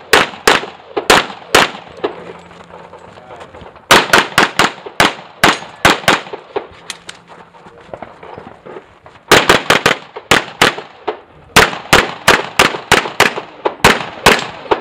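Handgun fire from a practical-pistol competitor shooting a stage: rapid strings of shots, many in quick pairs, broken by short pauses of one to two seconds.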